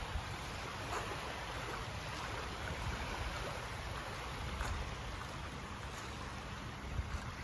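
Small waves lapping and washing in over a shallow sandy shore, a steady watery wash, with a low rumble of wind on the microphone.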